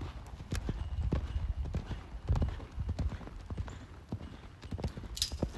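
Hoofbeats of a horse cantering on soft arena sand, a steady uneven run of dull thuds, with a brief hiss near the end.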